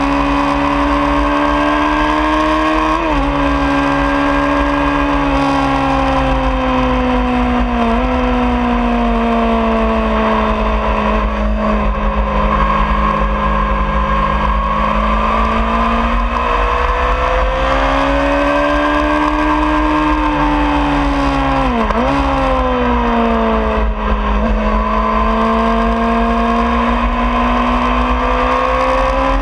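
2003 Honda CBR600RR's inline-four engine running hard on track, heard from onboard. Its pitch rises and falls with throttle, with sudden jumps a few times at gear changes, the sharpest a little past two-thirds through. A steady wind rumble sits on the microphone underneath.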